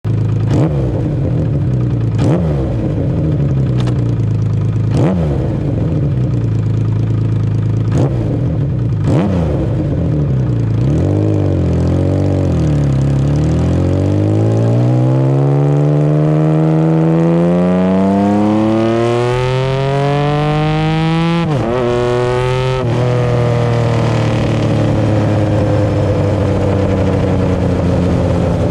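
Honda CBX1000's inline-six engine running through a Pipemasters six-into-six exhaust. It idles with a string of quick throttle blips, then revs slowly and steadily up over several seconds. It drops sharply, takes one more blip and settles to a fast idle.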